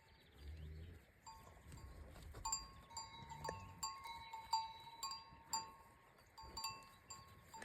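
Neck bells on grazing livestock clinking and ringing irregularly, about one or two strikes a second, each ring with a clear metallic tone that hangs briefly.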